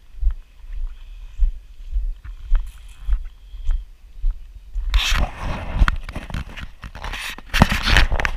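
Footsteps thudding about twice a second, then loud rustling and scraping from about five seconds in, as of pushing through brush.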